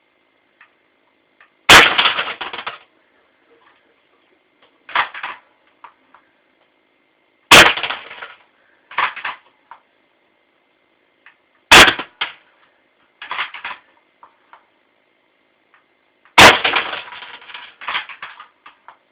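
Crosman Stinger R39 airsoft rifle fired four times, each sharp crack followed by about a second of clattering as the shot hits the glass ornament and its shattered pieces. Between the shots comes a shorter, quieter clatter.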